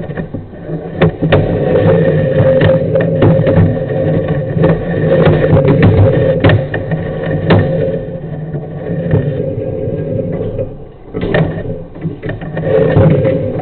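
Sewer inspection camera being pushed along a pipe: frequent knocks and scrapes over a steady mechanical hum.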